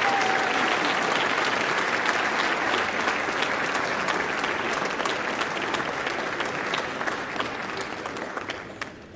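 Audience applauding, a dense patter of many hands clapping, fading out near the end.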